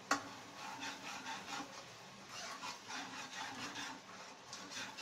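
A steel spoon scraping and stirring a thick tomato masala in a nonstick kadhai, in irregular strokes, after a sharp knock at the start.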